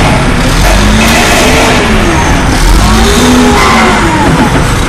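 Oilfield pipe laydown machine's engine and hydraulics running loud, with a whining tone that rises and falls several times as the control levers are worked.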